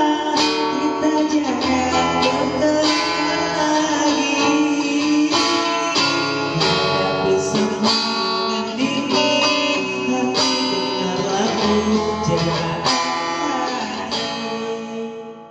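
A guitar strumming a pop ballad's closing bars, with a man singing into a microphone over it. The music fades out near the end.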